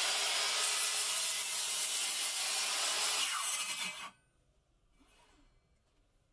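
Circular saw running and crosscutting a wooden board along a saw guide, a loud, steady cutting noise that cuts off abruptly about four seconds in.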